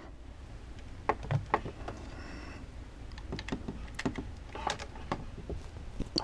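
Scattered small plastic clicks and knocks as a Raspberry Pi 3's clear plastic case is handled and a cable is plugged into it.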